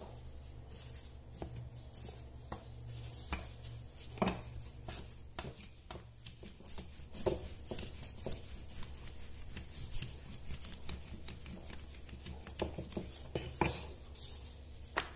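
Wooden rolling pin rolling a floured disc of dough on a wooden board, with hands pressing it: soft, irregular rubbing strokes and light knocks of the pin on the board. A low steady hum underlies it.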